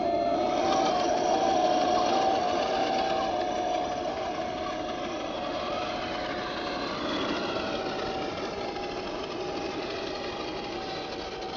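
Radio-controlled M1A2 Abrams model tank driving, its electric drive motor, metal gearbox and metal tracks running together with the simulated engine sound from its onboard speaker: a steady whine that shifts slightly in pitch now and then. The sound fades as the tank drives away.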